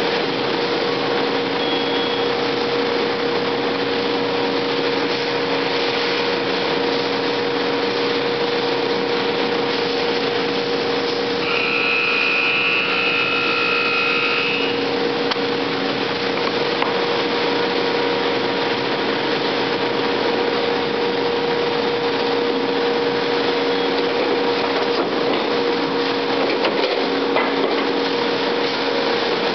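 Large industrial machine running steadily, a constant mechanical hum over a noisy hiss. About twelve seconds in, a higher whine joins for roughly three seconds.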